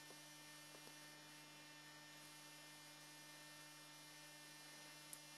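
Near silence: a faint, steady electrical hum over low background hiss.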